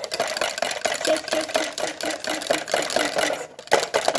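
Hair conditioner being beaten in a bowl: a rapid, even clatter of mixing strokes, with a short break about three and a half seconds in.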